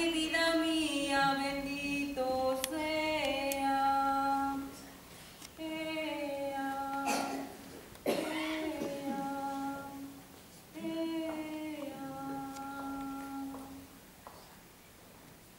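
A woman singing a lullaby alone, unaccompanied, in slow phrases of long held notes that step downward, with short breaks between phrases. The singing stops near the end.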